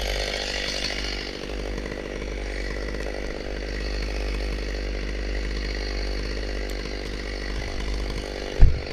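Chainsaw engine running steadily, with a brief low thump near the end.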